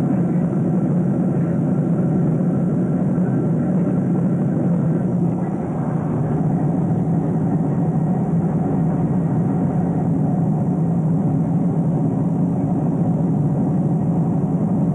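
Steady cabin noise of an airliner in flight: the low, even rush of airflow and jet engines heard from inside the passenger cabin.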